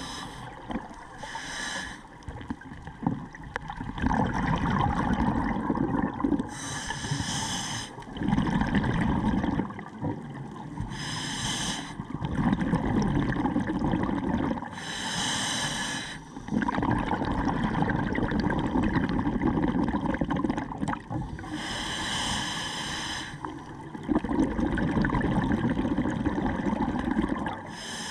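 Scuba breathing through a regulator, heard underwater. Each breath is a short hiss as the diver inhales through the demand valve, then several seconds of bubbling as the exhaled air vents. There are about five slow, even breaths.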